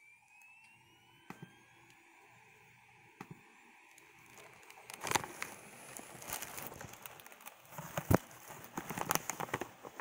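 Rustling and irregular clicking from a handheld camera being moved and reframed, starting about halfway through, with a sharp click about eight seconds in. Before that a faint whine rises slowly in pitch.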